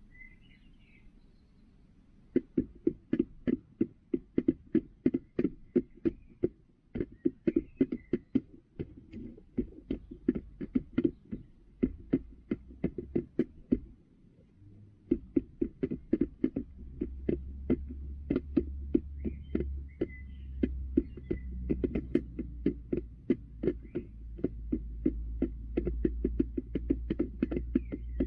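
A hen pecking feed from a plastic feeder tray right by the microphone: rapid sharp taps, about three to four a second, with a short pause about halfway. There are faint soft calls now and then, and a low hum comes in during the second half.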